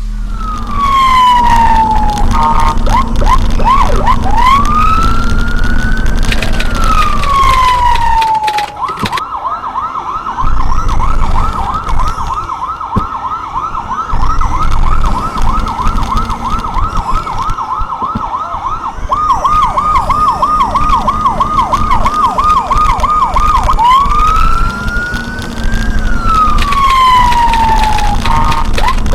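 Electronic vehicle siren cycling through its tones. It opens with a slow falling-and-rising wail and a few quick yelps. About nine seconds in it switches to a long run of rapid warbling sweeps, changes to a choppier fast pattern near twenty seconds, and returns to the slow wail near the end, over a low vehicle rumble.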